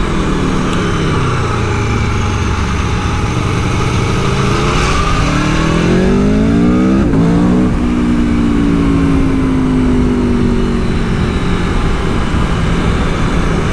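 Aprilia Tuono V4 1100's V4 engine under way. The pitch eases down at first. From about four and a half seconds in it rises steeply under acceleration, drops sharply at about seven seconds with a quick-shifter upshift, then holds fairly steady.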